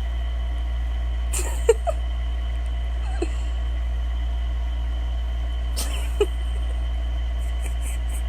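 A dog making three short vocal sounds, brief rising whines or snuffles, about a second and a half, three and six seconds in, over a steady low hum.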